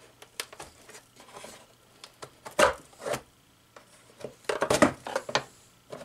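Screwdriver prying at the plastic latch tabs of a Bissell PowerGlide Pet upright vacuum's bottom plate: scattered clicks and scrapes of plastic, with sharper snaps about two and a half and three seconds in and a busy clatter around five seconds as the plate is worked loose.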